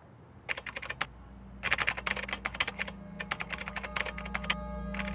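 Computer keyboard typing sound effect: bursts of rapid key clicks, with short pauses between the bursts. A low steady hum comes in underneath about a second in.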